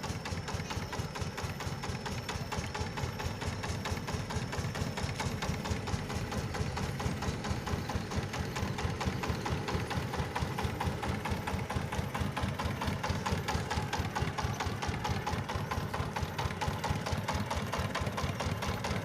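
Yanmar 20 diesel engine of a mobile rice huller running steadily, with rapid, even firing beats that grow slightly louder over the stretch.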